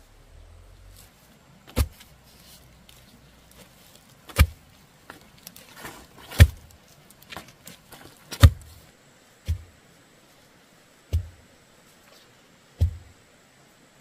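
Seven heavy thuds, struck irregularly one to two seconds apart, each a sharp deep knock.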